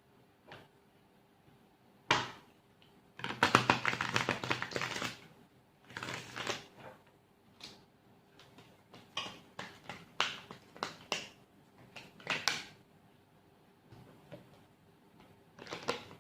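Tarot cards being handled: a sharp snap about two seconds in, a quick run of rapid card flicks for about two seconds, then a string of separate clicks and slaps as cards are drawn and laid down.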